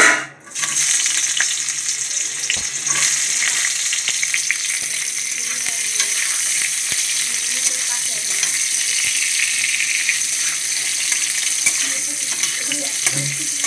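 Boiled potato chunks dropped into hot oil in a metal kadai: a sudden loud splash and hiss at the start, then steady sizzling as they fry, with small scrapes of a steel spatula turning them near the end.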